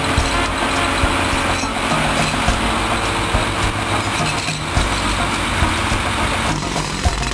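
Engine of construction machinery running steadily, with a few short knocks over it.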